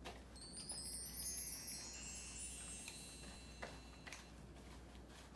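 Twinkling chime sound effect: a cascade of high bell-like tones that starts just after the beginning and rings away over about three seconds.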